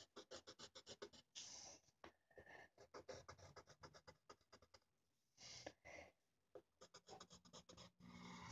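Faint scratching of a black erasable colored pencil drawing lines on paper, in quick short strokes with a few brief pauses.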